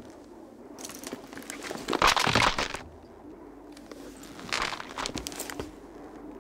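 Foley rustling and scuffing in three bursts, the loudest about two seconds in: clothing and a case with a shoulder strap being handled, and shoes shifting on wooden floorboards.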